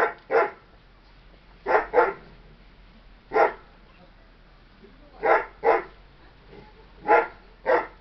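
A dog barking repeatedly: about nine short barks, mostly in quick pairs a second or two apart.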